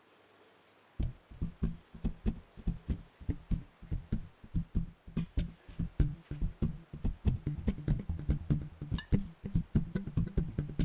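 Background music: a steady low thumping beat, about three a second, starting about a second in.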